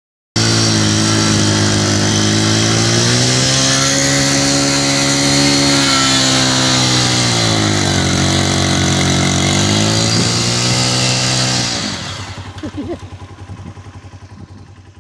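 Junak 125NK's 125cc engine held at high revs during a burnout, with the rear tyre spinning in sand under a steady hiss; the engine pitch rises and dips twice. Near the end the revs drop away and the engine sound fades out.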